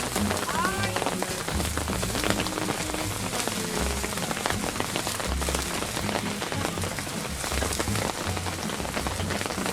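Steady rain pattering on a surface, dense with individual drop ticks, with soft background music and a stepping bass line underneath.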